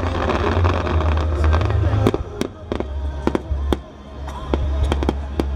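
Starmine fireworks display: a continuous low rumble of shell bursts with many sharp cracks and crackles, coming thicker in the second half.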